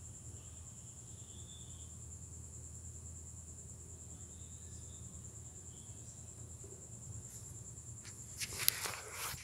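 An insect, likely a cricket, trilling steadily at a high pitch, with a low hum underneath. A cluster of rustles and clicks comes near the end.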